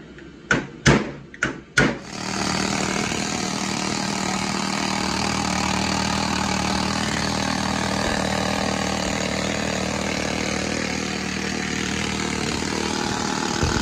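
A few sharp knocks on rusty metal, then about two seconds in a needle scaler starts and runs steadily, hammering rust and scale off a 1995 Ford Mustang front spindle.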